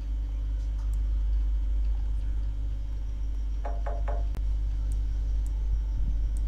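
Steady low background rumble and hum, with a brief snatch of voice about four seconds in and a few faint clicks.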